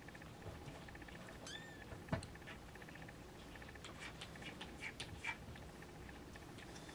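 Siamese snowshoe kitten giving one short mew, rising then falling in pitch, about a second and a half in. A sharp click follows just after it, and a few light clicks and scratches come around four to five seconds in.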